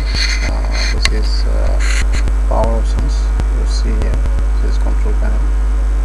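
Loud, steady electrical mains hum on the recording. Faint, brief snatches of voice and a few short hissy bursts in the first two seconds sit over it.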